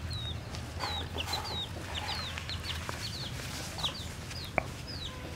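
Chicks peeping: a string of short, high, downward-sliding peeps, several a second. A single sharp click comes about four and a half seconds in.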